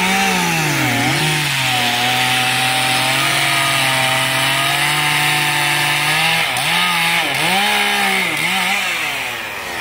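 Gas chainsaw cutting into a Mexican fan palm trunk. The engine pitch dips and recovers about a second in, holds steady for several seconds through the cut, then swoops up and down in several quick throttle blips near the end.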